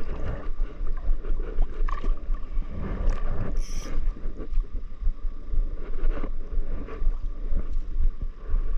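Shallow water sloshing and lapping against a camera held at the water's surface, with wind rumbling on the microphone.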